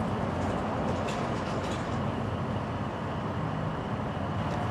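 Steady outdoor background rumble, like distant traffic. Over it come a few faint light clicks in the first two seconds, as fire-starter pieces and wood pellets are handled inside a folding steel stove.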